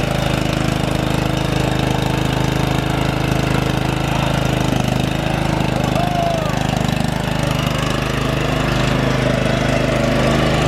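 Troy-Bilt TB30 mini rider lawn tractor's engine running at a steady speed.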